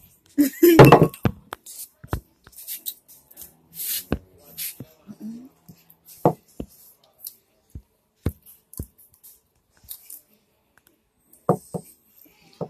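A metal spoon clicking and scraping against a bowl in scattered short taps while the food is eaten, with a brief loud vocal outburst about a second in.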